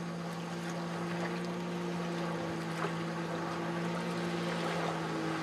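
A watercraft engine running with a steady drone, over rushing water and spray.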